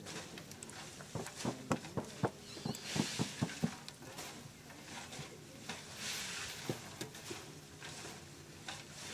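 Coca leaves being toasted and stirred by hand in a large metal pot over a wood fire: repeated rustling sweeps of the leaves against the pot, with a run of sharp crackles and clicks between about one and four seconds in.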